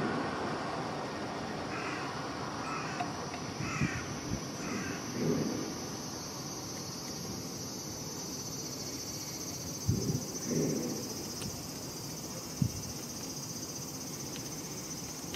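A steady high drone of summer insects, with a few short, high bird chirps a couple of seconds in and lower, harsher bird calls around five and ten seconds. Near the end there is one sharp tap, the loudest moment.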